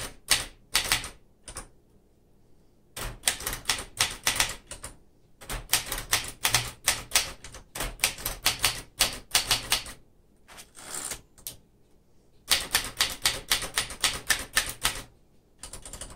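Typing on a 1967 Smith-Corona Corsair manual portable typewriter: quick runs of typebar strikes, broken by a few pauses of about a second.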